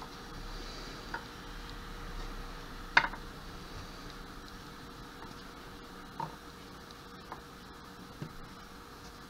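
Chopped carrot pieces being picked up and dropped into baking dishes: about five light clicks and taps over a faint steady hiss, the sharpest about three seconds in.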